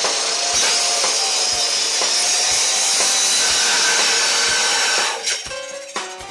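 Electric grinder saw cutting through flat steel, a steady high hiss over the motor's wavering whine. The cut stops about five seconds in.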